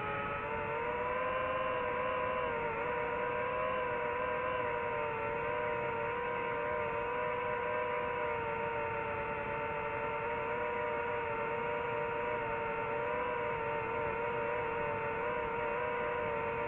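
DJI FPV drone's motors and propellers whining steadily in flight, the pitch wavering slightly with throttle and dipping briefly about three seconds in.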